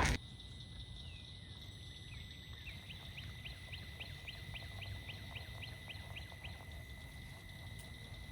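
A bird calling a quick, regular series of short rising chirps, about four a second, for a few seconds, over faint outdoor background with a low rumble and a steady high-pitched tone.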